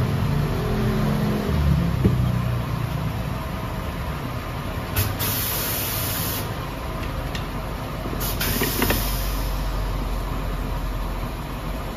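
Two short bursts of compressed-air hiss, one about five seconds in and one about eight seconds in, each lasting roughly a second and a half, as the tyre changer's pneumatic turntable clamps are worked. Under them is a steady low hum.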